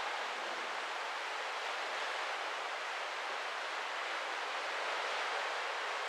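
Steady, even rush of sea water and wind past a moving cruise ship, with no distinct events.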